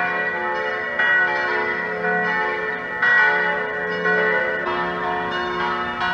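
Church bells ringing, several bells at once, with new strikes every second or two over the long ringing of the earlier ones.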